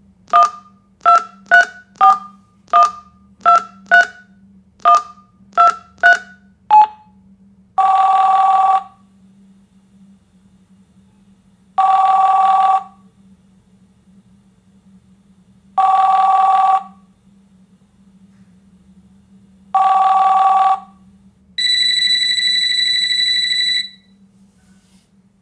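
Telephone call being placed: about ten quick two-note keypad tones as a number is dialled, then four one-second ringing tones about four seconds apart as the line rings, then a higher steady beep lasting about two seconds.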